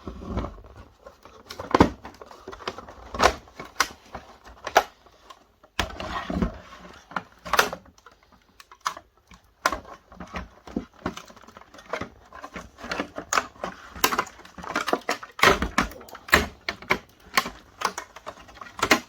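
Irregular clicks, taps and knocks of a plastic projector housing being handled and pried at while trying to get the lid off.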